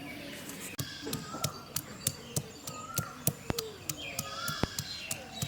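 Birds chirping in short rising and falling calls, over a run of sharp, irregular clicks.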